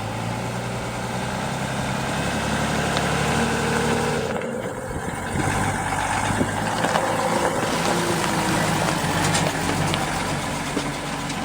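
Diesel engine of a Unimog FLU419 military utility vehicle running steadily. Its level swells over the first few seconds, dips briefly about four seconds in, then comes back up.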